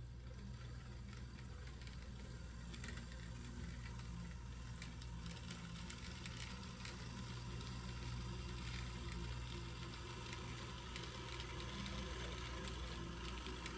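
HO scale Proto 2000 EMD SD7 model diesel locomotive running along the track: a steady motor and gear hum with a scatter of small clicks and rattle. The running is a little noisy, which the owner assumes is old factory grease in the trucks that needs cleaning out and replacing.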